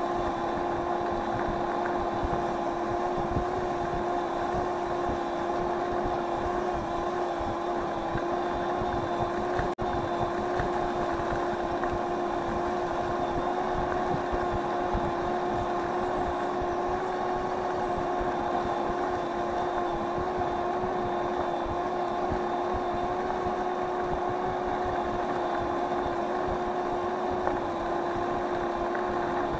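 Electric scooter motor whining at a steady pitch while cruising at constant speed, over wind noise on the microphone and rumble from the road.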